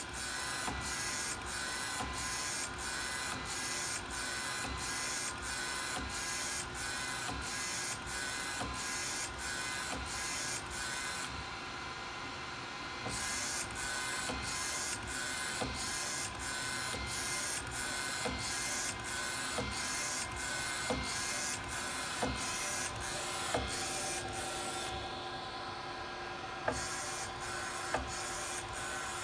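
Dreamjet UV flatbed inkjet printer printing: the print-head carriage sweeps back and forth about twice a second with a hiss on each pass, over a steady motor hum. The sweeping pauses briefly twice, and sharp clicks come every second or so in the later part.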